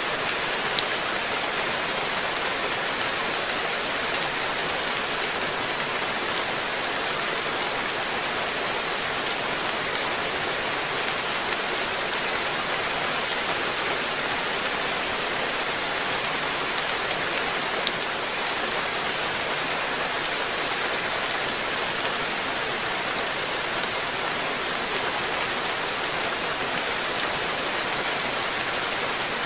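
Steady rain falling on a garden koi pond and the plants and decking around it, with the odd single drop landing close and standing out as a sharp tick.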